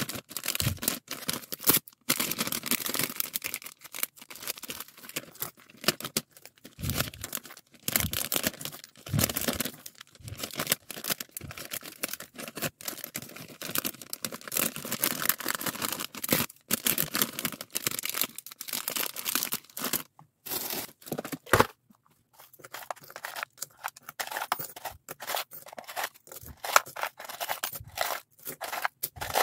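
Crinkling and rustling of plastic packaging as a stack of perler-bead keychains is handled, with the metal key rings clinking. Near the end the sound turns into separate clicks and rattles as keychains are handled in a small plastic box.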